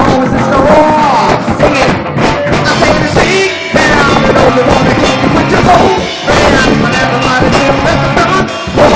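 Live rock band playing loud, full music with a drum kit driving the beat and sliding pitched lead lines over it.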